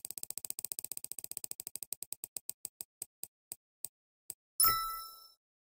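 Spinning prize-wheel sound effect: rapid ticks that slow and spread out over about four seconds as the wheel comes to a stop. Then a short bright chime that rings out and fades.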